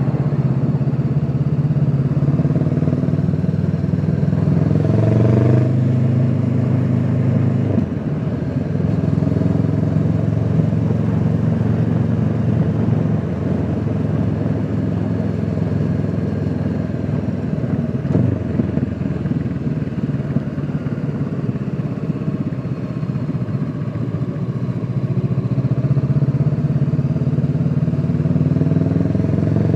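Honda CBR500R's parallel-twin engine under way, heard muffled from a microphone in the rider's pocket: revs rise over the first several seconds, ease off about eight seconds in to a lower, steadier run, and build again near the end.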